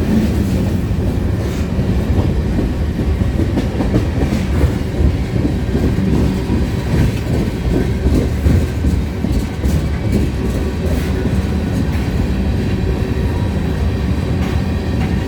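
CN freight train's cars rolling past, a steady low rumble with the wheels clicking over the rail joints.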